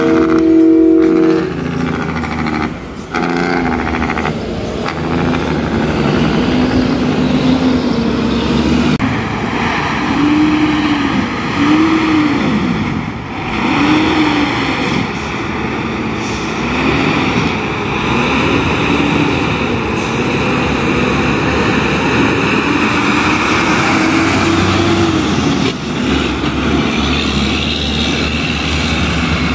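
Heavy truck's diesel engine running hard on its jake (engine compression) brake, the engine note rising and falling over and over. Near the start a multi-note air horn sounds and stops about a second and a half in.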